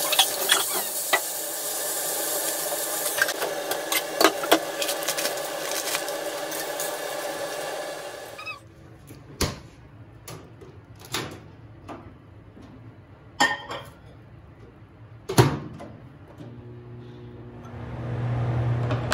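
Food sizzling in a frying pan with sharp clicks of a utensil against the pan for about eight seconds, then it cuts off suddenly. A few separate knocks follow as a bowl goes into a microwave oven and its door shuts. Near the end the microwave starts running with a steady hum.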